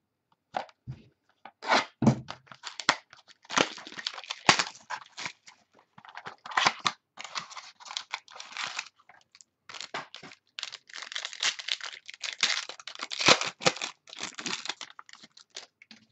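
Packaging being torn open and crinkled by hand as a box of trading cards is opened: irregular bursts of crackling and tearing with short pauses between them.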